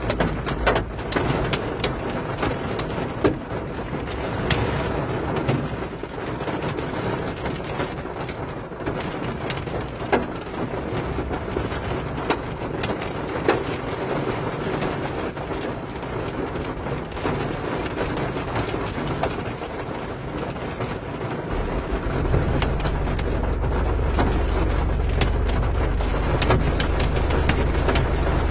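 Rain falling steadily, with frequent sharp ticks of drops striking the window glass close by. About three-quarters of the way through, a low steady rumble joins in.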